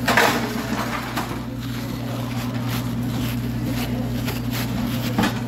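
A steady low mechanical hum, like an engine running, with a louder sudden noise right at the start and a few short clicks.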